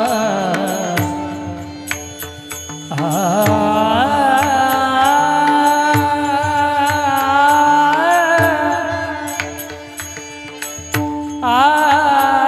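Marathi devotional kirtan singing: a voice drawing out long, bending melismatic phrases over a steady sustained accompaniment, with regular percussion strokes keeping time. The phrases break off twice, briefly, between lines.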